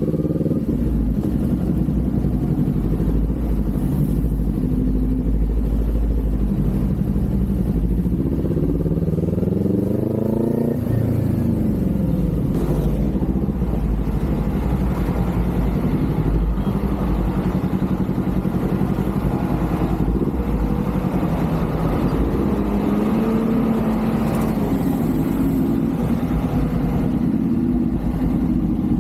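Kawasaki Z400's parallel-twin engine and exhaust running under way. The pitch climbs steadily from about eight seconds in to about eleven seconds, then drops sharply as the bike shifts up, with smaller rises and falls in pitch later on.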